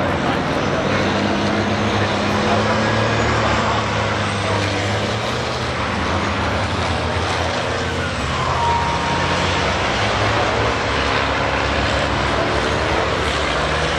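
Racing trucks' diesel engines running, a steady mix of engine drone and road noise.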